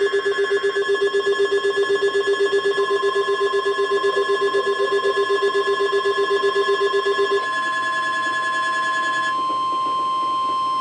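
Several alert tones sounding at once from weather alert receivers: a steady NOAA Weather Radio warning alarm tone, overlaid by a rapidly pulsing low beep and other steady tones. The pulsing beep stops about seven seconds in and the other tones about two seconds later, leaving the single alarm tone.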